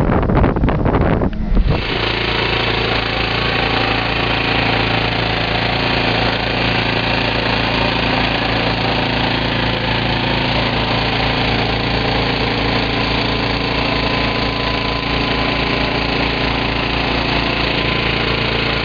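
Wind buffeting the microphone for the first second or two, then an abrupt change to an engine running steadily with a fast, even low pulse.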